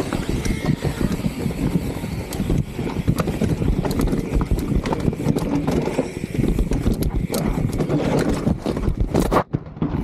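Salsa Cassidy full-suspension mountain bike rattling and clattering over rough trail: a dense, irregular run of knocks and clicks over a steady noisy rush. The sound cuts out briefly near the end.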